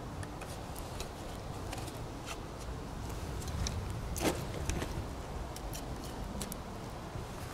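Knife blade worked into the cross-split end of a wooden stick, giving scattered small clicks and cracks of the wood, the loudest about four seconds in, over a steady low rumble.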